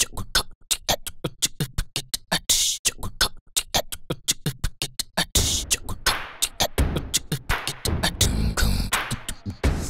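Instrumental intro of a children's song: a quick run of sharp percussive clicks and hits, joined a little over five seconds in by bass and fuller backing.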